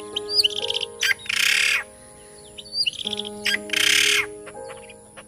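Lure recording of great hornbill calls: a fast rattling trill followed by a harsh, hissing burst about half a second long, the pair coming twice about three seconds apart. Steady held tones run underneath.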